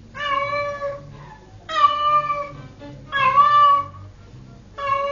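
A cat meowing four times, each call about a second long and held at an even pitch, over background music.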